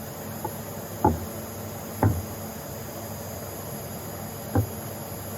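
Four short, dull knocks at irregular intervals over a steady background hiss.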